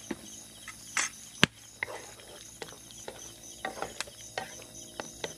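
Crickets chirping steadily in an even, repeating pulse, with scattered sharp clicks and knocks over it, the loudest about a second and a half in.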